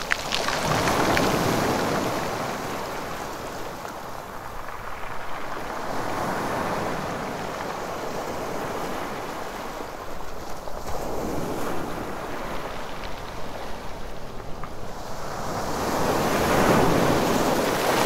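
Sea waves washing in on a rocky beach, a steady rush of surf that swells in slow surges, about a second in, around six seconds and loudest near the end.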